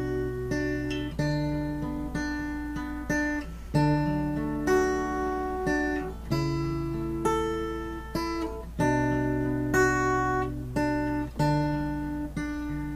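Instrumental break of a song: acoustic guitar strumming chords, each chord struck and left to ring, changing about every second or so.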